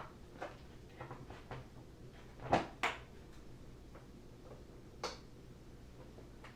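Scattered light clicks and knocks of objects being handled, with a louder double knock about two and a half seconds in and a sharper click about five seconds in, over a low steady background.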